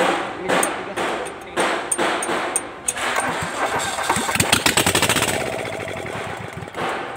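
Mitsubishi KE75 diesel engine, valve cover off, turning over with heavy strokes about twice a second, then catching about four seconds in and running briefly with a fast, even beat before slowing and dying away near the end.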